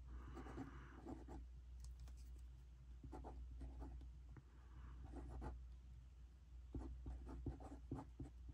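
Fine-tip pen writing a word on planner paper: faint scratching in short strokes with brief pauses between them.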